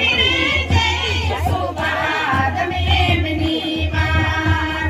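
A group of women singing together, with a large drum slung from one singer's shoulder beating along underneath.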